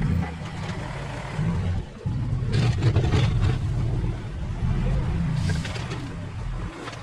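Engine of an earth-moving machine pushing dirt, working under changing load with its note rising and falling, and a brief drop just before 2 seconds. Short rattling, scraping noises come through about two and a half to three and a half seconds in and again near five and a half seconds.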